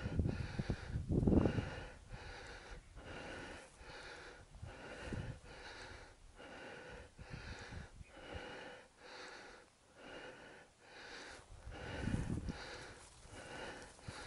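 A person's heavy, fast breathing close to the microphone, a little more than one breath a second, with a few low thumps near the start and again near the end.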